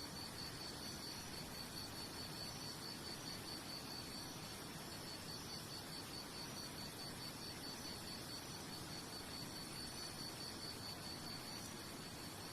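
A cricket chirping in a steady run of rapid high pulses, about five a second, over a steady background hiss; the chirping stops near the end.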